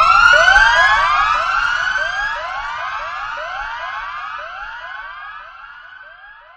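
Electronic DJ siren effect: a rapid run of upward-sweeping tones, about three a second, fading away steadily until it is faint.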